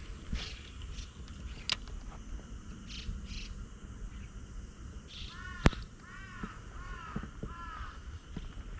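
A crow cawing about five times in quick succession in the second half. A single sharp click, the loudest sound, cuts in just after the first caw, and a couple of fainter clicks come earlier.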